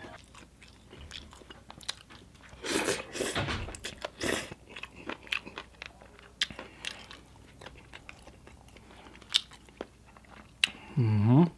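Close-up chewing and crunching of papaya salad, with a run of crisp crunches about three to four seconds in and scattered small mouth clicks. Near the end, a short pitched cry that rises and falls is the loudest thing.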